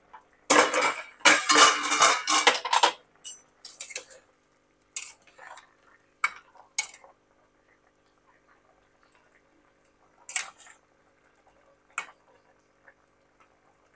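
A lid taken off a pot of boiling raw jackfruit with a clatter lasting a couple of seconds, followed by a spoon clinking against the pot now and then as the pieces are checked for doneness.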